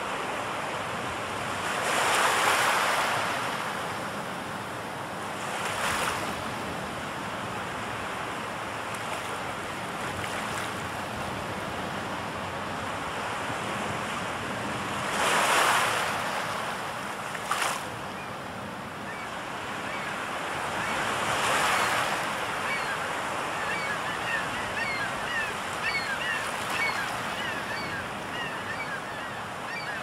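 Sea surf washing on a shore, swelling into a surge every few seconds; the loudest wave comes about halfway in. In the last third, many short, high bird calls sound over the surf.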